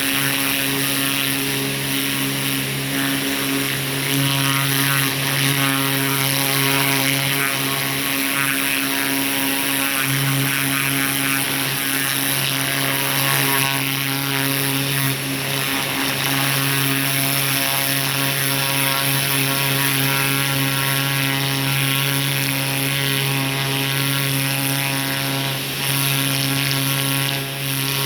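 Pressure washer running steadily: a constant motor hum under the loud hiss of its water spray.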